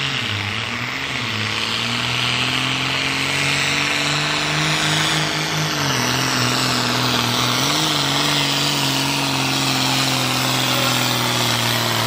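John Deere 4840 tractor's turbocharged six-cylinder diesel running flat out under full load as it drags a pulling sled. The revs dip slightly about six seconds in and then hold steady.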